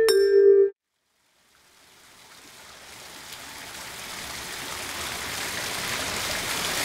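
A mallet-percussion note rings and stops just under a second in. After a brief silence, the steady rush of flowing water fades in and grows gradually louder.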